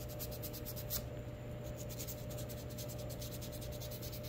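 Sandpaper, 220 grit, rubbed by hand over the front edges of a pair of micarta knife scales held together: a fast, even back-and-forth scratching that runs without a break.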